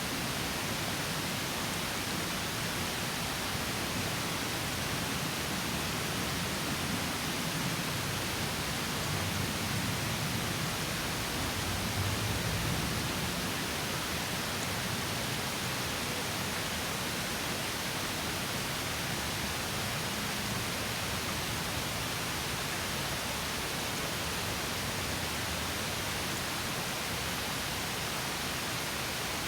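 Water of a small stream spilling over a mini waterfall: a steady rushing hiss, with a slightly fuller low rumble about ten to thirteen seconds in.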